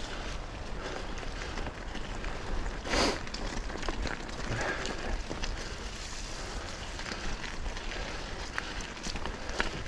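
Mountain bike riding down a dirt and gravel trail: steady tyre noise with frequent clicks and rattles from the bike, and a louder rush about three seconds in.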